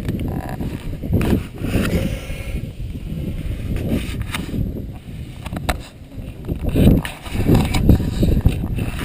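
Uneven low rumble of wind and water around a small boat on open water, picked up by an action camera's microphone, with a few sharp knocks and clicks.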